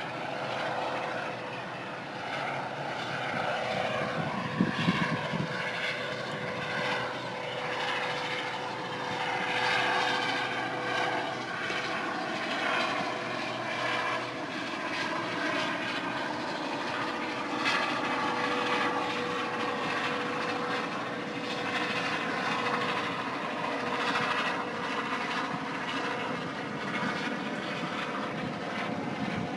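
Helicopter in flight, its rotor and engine running steadily with a constant whine through the noise and a few brief thumps around four to five seconds in.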